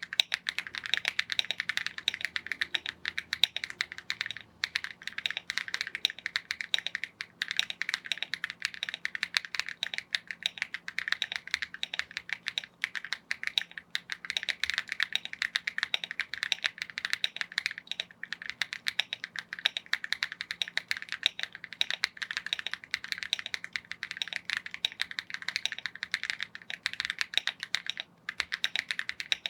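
Continuous fast typing on a Rainy75 mechanical keyboard with AKKO V3 Cream Yellow switches, a dense run of keystroke clicks with a few brief pauses.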